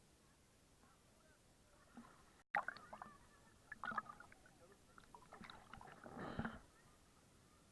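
Water splashing and sloshing close to the camera in irregular bursts, starting after a sudden cut about two and a half seconds in, with the loudest splash near the end.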